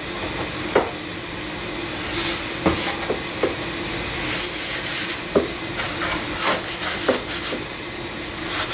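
Rocket motor mount being pushed and turned inside the body tube: repeated short scraping rubs, coming in clusters and busiest near the end, with a few light knocks between them.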